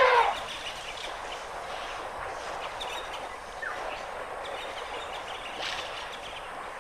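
The tail of a loud elephant trumpet call cuts off in the first moment, then a steady outdoor background hiss with a few faint bird chirps.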